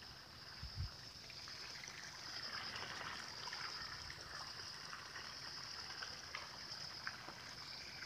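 Light rain falling on floodwater and leaves, with scattered drips and ticks, over a steady high-pitched drone. A brief low bump comes about a second in.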